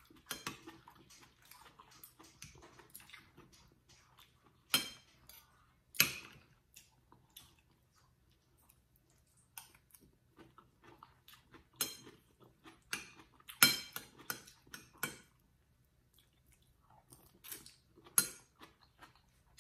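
Metal spoon and fork clinking and scraping against a ceramic plate in scattered sharp clicks, with quiet chewing between them.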